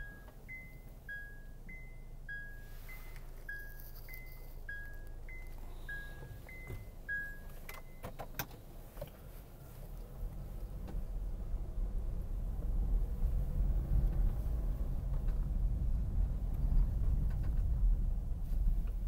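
A car's electronic reverse warning beeps during a U-turn: a high-low two-note beep repeating steadily, stopping about seven and a half seconds in. A few clicks follow, then engine and tyre rumble grows louder as the car pulls forward over the rough road.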